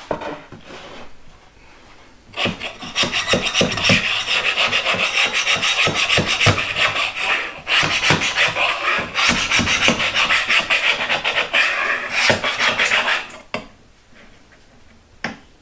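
Hand scraping with a flat blade, rubbing leftover hot glue off the planer sled's white board in rapid back-and-forth strokes. It starts about two seconds in, breaks off briefly about halfway, and stops shortly before the end.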